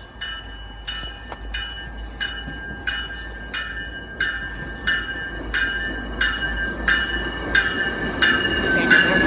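Railroad grade-crossing bell ringing in an even rhythm, about one and a half strokes a second, with the rumble of an approaching commuter train building near the end.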